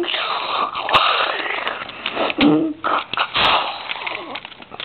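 A child making mouth sound effects for a toy fight: breathy hissing and blasting noises, with a short voiced grunt about halfway through and a few sharp knocks from the toys being handled.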